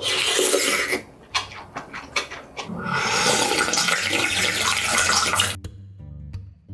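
Galbitang broth slurped loudly from a spoon, a second of short chewing and mouth clicks, then a long loud slurp of the broth drunk straight from the bowl for nearly three seconds. It cuts off suddenly near the end, and acoustic guitar music begins.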